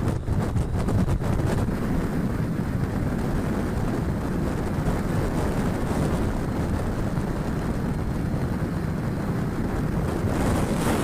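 Steady wind buffeting the microphone over road and engine noise from a moving motorcycle.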